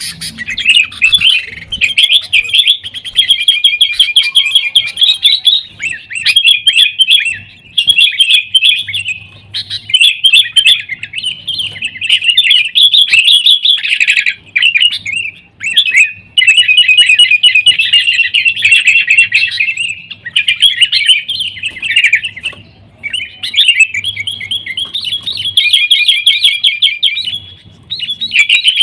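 Sooty-headed bulbuls giving loud, rapid, noisy chattering calls in long bouts with brief pauses between them. This is the agitated 'fighting' chatter of the species.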